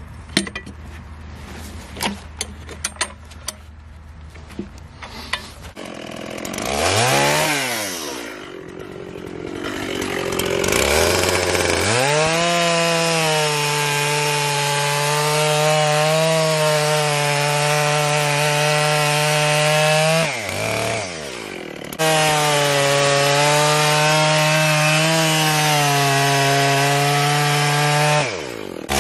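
Dolmar 7900 two-stroke chainsaw idling, revved up and back down once about seven seconds in, then opened to full throttle and cutting through a maple log. The engine note drops away briefly about twenty seconds in and again near the end before it comes back up to cutting speed.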